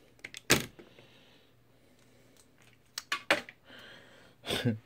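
Clicks and knocks from handling a power cable plug at a TV's power supply board. A short, loud burst of noise comes about half a second in, a cluster of clicks around three seconds, and another short burst near the end.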